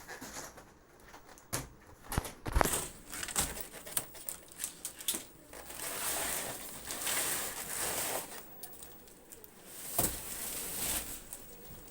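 Plastic and cardboard packaging crinkling and tearing as it is handled, with irregular sharp knocks and clicks, the loudest about two and a half seconds in and another near ten seconds.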